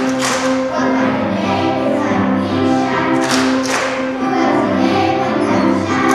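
Children's choir singing with instrumental accompaniment, steady held notes.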